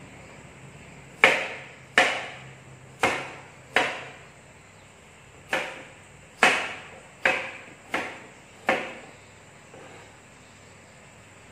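Kitchen knife chopping ingredients: nine separate sharp knocks at an uneven pace, each fading quickly.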